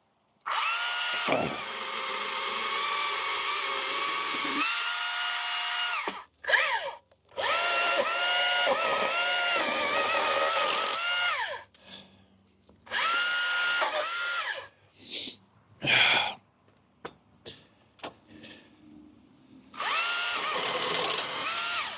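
Battery-powered pole saw running in four bursts of a few seconds each, its motor whine shifting a little in pitch during each run, with short blips of the trigger in between, as it cuts back holly branches.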